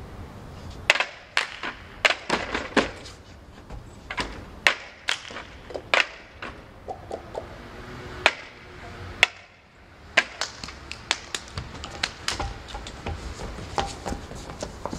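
Irregular sharp taps and knocks, as of small objects struck on a table, sometimes in quick clusters of several. A short pitched ringing comes about seven seconds in.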